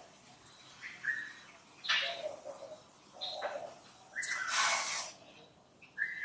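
Birds calling in the trees: a dove's short low coos and brief chirps, with two louder hissy bursts, one about two seconds in and a longer one about four seconds in.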